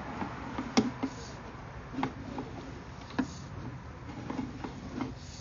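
Sewer inspection camera being pulled back through the line: irregular sharp clicks and knocks from its push cable and camera gear, about one a second, the loudest about a second in, over a low steady noise.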